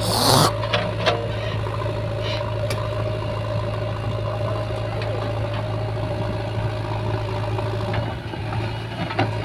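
Diesel engines of a tractor and a JCB 3DX backhoe loader running steadily, a low hum with a higher whine above it that drops away about eight seconds in. A short rattling burst comes right at the start.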